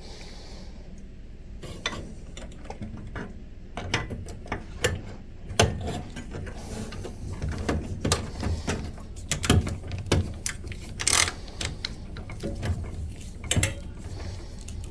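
Irregular sharp clicks and light clatter as small plastic and metal parts are handled and fastened by hand inside a pinball machine.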